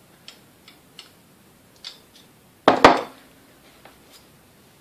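Light metal clicks and scrapes of a screwdriver working old grease out of a die-cast mixer gearbox housing, then one loud metallic clunk with a brief ring a little under three seconds in as metal is set down on the workbench.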